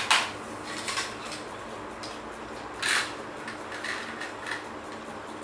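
A few light clatters and scrapes of plastic toy vehicles knocking together and sliding: a sharp knock at the start, a smaller one about a second in, and a short scraping rush near the middle.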